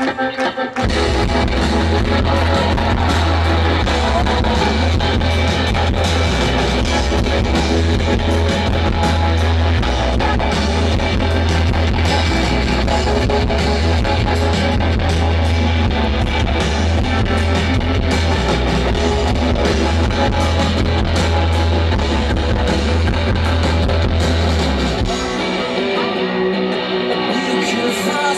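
Rock band playing loud music with guitars and a heavy bass. The bass comes in about a second in and drops out near the end.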